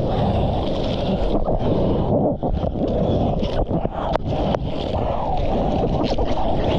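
Turbulent whitewater rushing right at a GoPro action camera as a bodyboard rides through a breaking wave, with scattered splashes and knocks through the middle.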